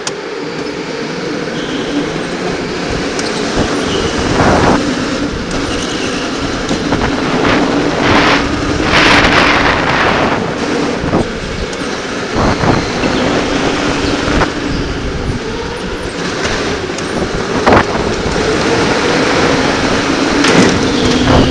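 Electric go-kart on track: a motor whine that shifts in pitch with speed, under a constant rush of tyre and wind noise. The noise swells into short louder rushes several times.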